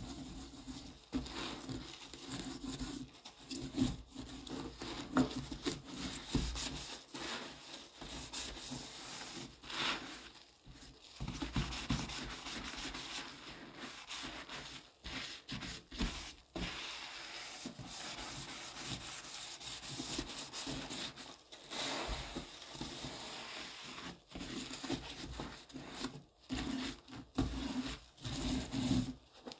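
A soapy sponge, held in a gloved hand, being rubbed and scrubbed around a sink basin full of foamy paste, in irregular strokes.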